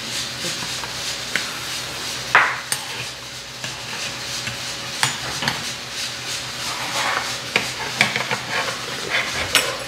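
Metal spoons stirring soup and clinking against earthenware ttukbaegi pots, with about eight sharp clinks over a steady hiss.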